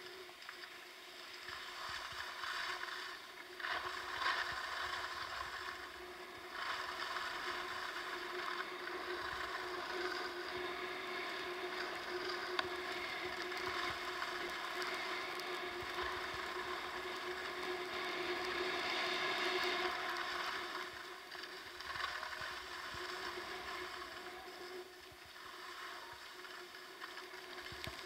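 Sliding down a groomed ski run: edges hissing and scraping over packed snow, with wind rushing on the microphone. The noise swells and fades through the turns.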